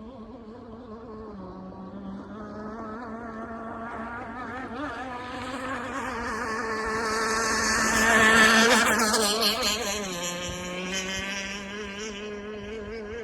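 Zippkits SLR Missile Thunderboat RC hydroplane's Zenoah two-stroke gas engine running at speed. It grows louder as the boat approaches, is loudest as it passes about eight seconds in, and drops in pitch and fades as it goes away.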